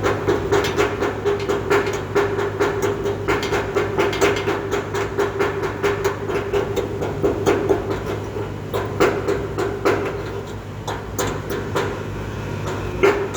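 Stick-welding arc on a 7018 electrode, burning over painted steel: a continuous, irregular crackling and popping over a steady hum.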